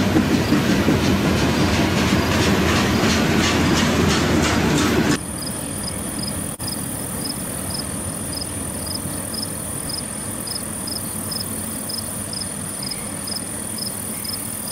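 Freight train of covered hopper cars rolling past, its wheels clicking over the rail joints in a steady rhythm. About five seconds in the sound cuts off abruptly to a quieter steady hiss with a thin high whine and faint, evenly spaced ticking, about three a second.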